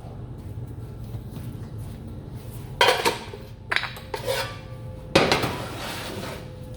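Metal clinking and clattering of hand tools and parts being handled during motorcycle airbox work, in a few sharp bursts about three, four and five seconds in, over a steady low hum.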